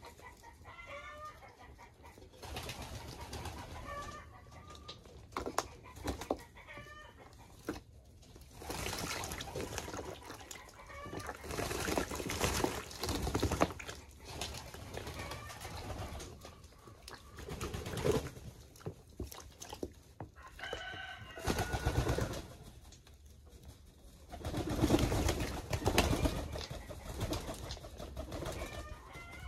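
English Modena pigeons bathing: repeated bursts of splashing and wing-flapping in water, each lasting one to three seconds. Between the bursts there is pigeon cooing and short, higher bird calls.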